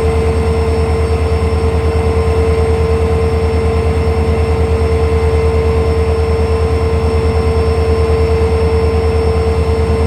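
Diesel locomotive engine running, heard close up from its side walkway: a loud, steady throbbing drone with a constant whine above it.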